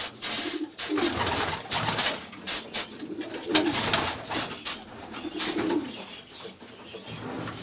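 Repeated short hissing bursts from an aerosol insecticide can sprayed onto a pigeon's spread wing to kill pigeon flies, with pigeons cooing in between.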